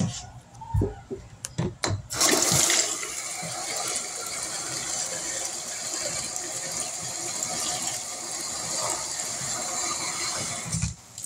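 A few knocks, then about two seconds in a bathtub faucet starts running steadily into a plastic jug, filling it with water. The flow stops abruptly near the end.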